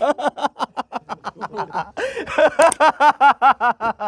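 A person laughing hard in a long run of quick ha-ha pulses, with a short break about two seconds in before the laughter picks up again.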